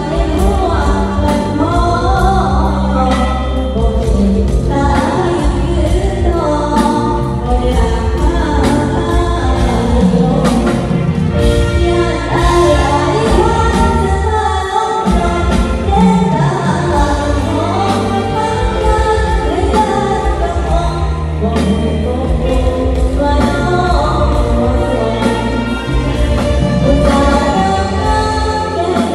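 A girl singing into a microphone over backing music with a steady bass pulse, both amplified through PA speakers.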